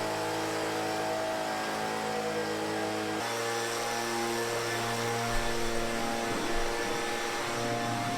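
Background music of sustained held chords, changing to a new chord about three seconds in and cutting off abruptly at the end.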